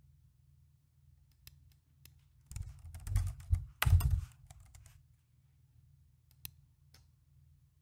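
Typing on a computer keyboard: a quick run of keystrokes lasting about two seconds, ending with the loudest strokes, followed a couple of seconds later by a single mouse click.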